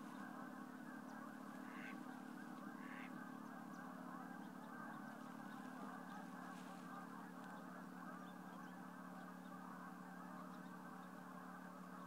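Faint, continuous chatter of a large distant flock of waterfowl, with two short higher calls about two and three seconds in.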